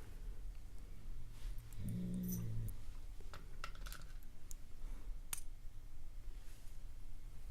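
Small sharp clicks and ticks of metal tools against lock parts as pins and springs are worked out of a lock's chambers, with a brief low voice-like sound about two seconds in.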